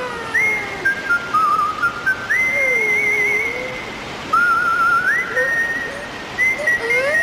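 A whistled tune: a run of high notes that slide into each other, some held with a warbling wobble, and a few lower sliding notes in between.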